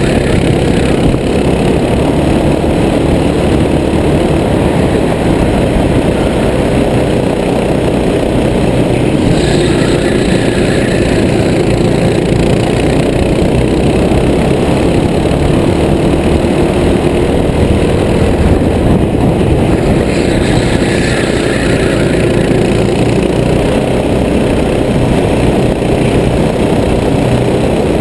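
Racing kart's engine running hard, its pitch rising and falling with throttle through the corners, over steady loud rushing noise.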